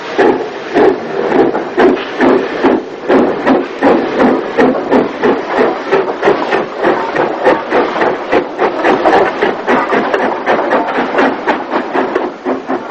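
Steam locomotive working hard, its exhaust beats coming fast and even, about four or five a second, dropping away near the end.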